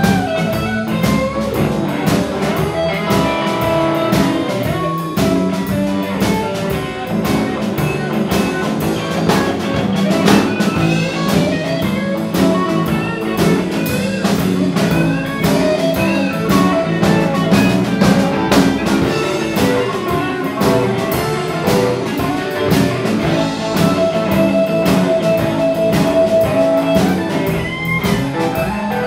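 A live electric blues band plays an instrumental passage: electric guitar lead lines over bass and a drum kit keeping a steady beat.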